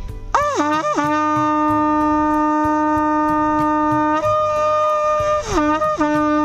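A conch shell (shankh) being blown. It opens with two quick upward swoops in pitch, then holds a long steady note, breaks up to a higher note about four seconds in, and drops back down with two more swoops near the end.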